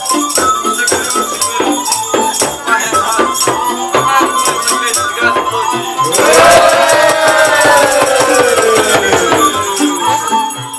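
Small bells and jingle bells shaken hard in a fast, even rhythm. About six seconds in, a long call-like tone starts over them and falls slowly in pitch for about four seconds.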